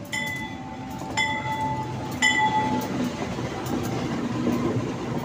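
A CC203 diesel-electric locomotive passes close by hauling a passenger train: the diesel engine runs with a low hum, and the rumble and clatter of wheels on rail grow as the locomotive and first coaches go by. In the first couple of seconds a short ringing tone repeats about once a second, three times.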